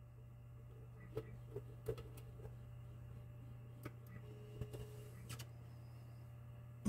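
Faint scattered clicks and taps of fingers handling a small metal electronics case, pushing an SD card into its slot, over a steady low hum.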